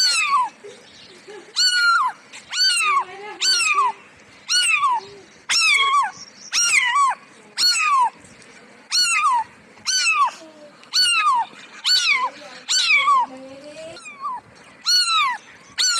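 Cat meowing over and over, short meows about once a second, each falling in pitch.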